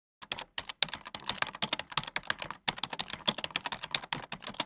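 Computer-keyboard typing sound effect: a rapid run of key clicks, starting a moment in, with short breaks about half a second in and again near the middle.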